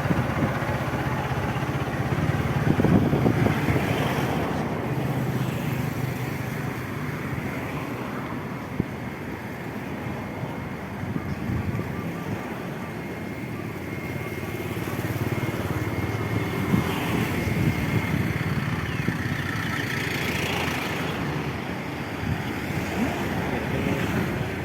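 A motor engine running with indistinct voices and general activity around it, a busy outdoor ambience.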